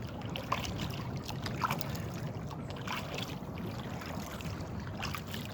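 Water moving against a kayak hull on a lake: a steady low rumble with a few small splashes and knocks.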